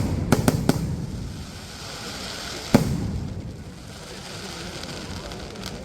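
Fireworks going off: a quick run of four sharp bangs in the first second, a single loud bang near three seconds in, and a fainter one near the end, with crackling in between.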